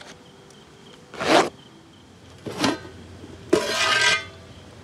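Two short scraping sounds, then a stainless steel pot lid scraping against the rim and ringing as it is lifted off the steaming pot, about three and a half seconds in.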